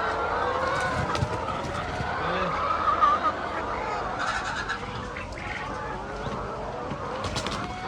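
A flock of chickens calling, many voices overlapping continuously, with a few faint clicks.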